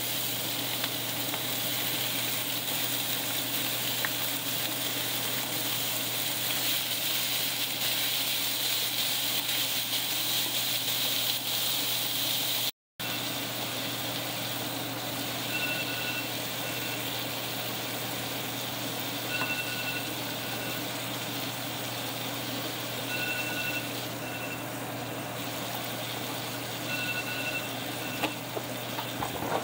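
Chopped beef sizzling steadily as it fries in a cast-iron skillet. Faint short high tones come every few seconds in the second half.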